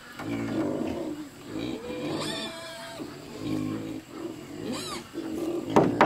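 A farm animal making a string of low, drawn-out calls, each under a second long, with two sharp knocks just before the end.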